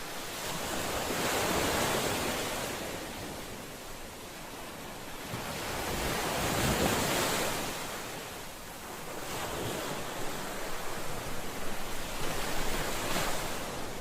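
Ocean waves breaking: three swells of rushing surf about five seconds apart, each rising to a hiss and falling away, the last with a crackling fizz.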